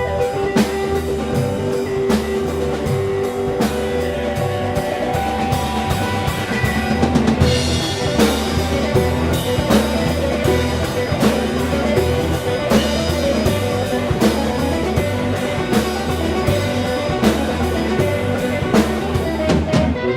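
Blues band playing live: drum kit keeping a steady beat under guitar, in an instrumental stretch with no singing.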